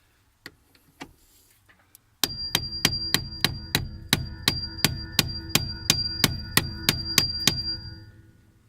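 Rhythmic metal knocking, about three sharp knocks a second, over a steady grinding din with a ringing metallic tone: tool work on a stubborn steering-column bolt while the ignition switch is being removed. It starts suddenly about two seconds in and fades out near the end.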